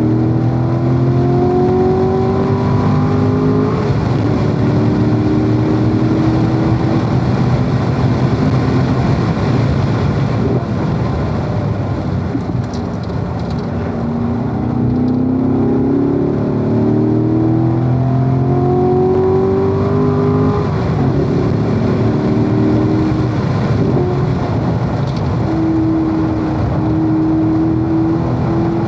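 Corvette V8 engine under hard acceleration on a race track, its pitch climbing and dropping back at gear changes about 4 seconds in and again about 21 seconds in. It eases off briefly in the middle and runs at a steadier pitch near the end.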